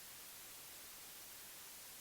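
Steady, faint white noise: an even hiss with no change.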